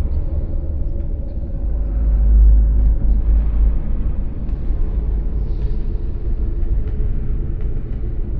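Dark ambient drone from a haunted-house atmosphere sound effect: a deep, steady rumble with a fainter hiss above it, swelling a little about two seconds in, with a few faint clicks.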